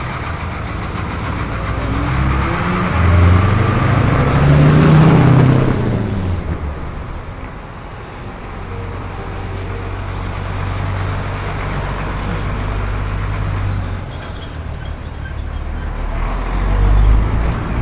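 A bus's engine rising and then falling in pitch as it passes close by, with about two seconds of air-brake hiss midway through the pass. Then a steady low engine rumble, and another vehicle building up loudly near the end.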